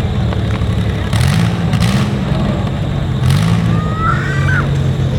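Demolition derby vehicle engines running unmuffled, revved up and back down several times. A short, rising high squeal comes about four seconds in.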